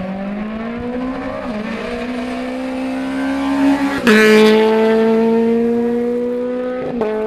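Rally car engine revving hard through the gears on a special stage, its pitch climbing with short breaks at the gear changes about a second and a half in and near the end. About four seconds in it suddenly gets much louder as the car comes close, then slowly fades.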